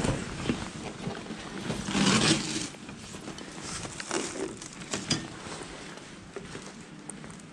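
Footsteps and the rustle of a jacket and delivery bag while walking down a hallway, with a few brief rustling bursts and sharp clicks.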